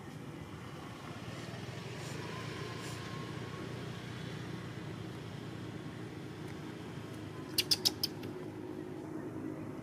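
Steady low outdoor background rumble, broken near the end by a quick run of four sharp clicks.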